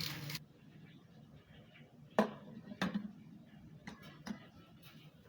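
Running tap water shuts off, then a few sharp clicks and knocks of kitchenware being handled: two distinct knocks a little over two seconds in, and two fainter ones about a second later.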